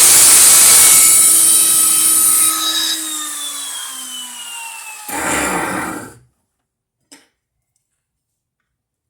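A grinder cutting off a rivet in a Kevlar helmet. It switches off about two and a half seconds in and spins down with a falling whine. A short loud burst of noise comes about five seconds in, then silence apart from one faint click.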